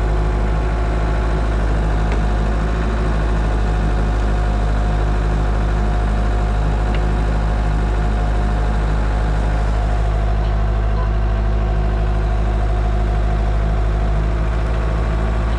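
Skid steer engine idling steadily, heard close up from the machine.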